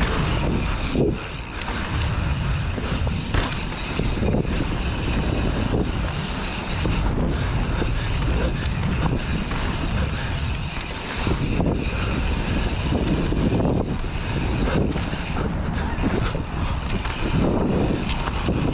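Wind buffeting the microphone of a camera on a mountain bike riding fast down a dirt trail, over the rolling of the tyres on dirt, with scattered knocks from the bike over bumps and landings.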